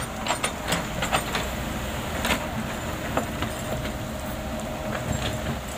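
Compact Komatsu PC78US excavator working: its diesel engine and hydraulics run steadily while the bucket digs into stony soil, giving a run of sharp knocks and scrapes in the first second and a half and a few more later. A faint steady whine runs through the second half.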